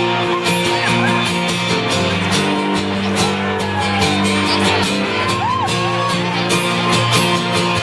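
Live band playing the instrumental intro of a country song, with guitar and a steady beat, and scattered shouts from the crowd.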